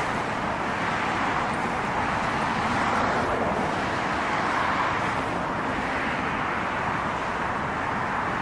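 Steady roar of a Boeing 777-300ER's GE90 jet engines as the airliner comes in to land.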